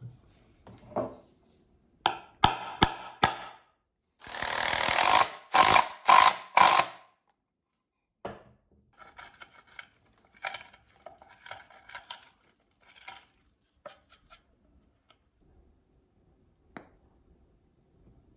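Power drill driving a screw into a wooden board: a few short trigger bursts about two seconds in, then a longer, louder run with pulses from about four to seven seconds. Quieter handling and rustling noises follow, with a single click near the end.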